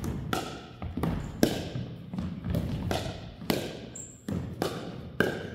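Pickleball rally: hollow plastic ball struck by paddles and bouncing on the wooden gym floor, sharp hits about every half second to a second, echoing in the large gym.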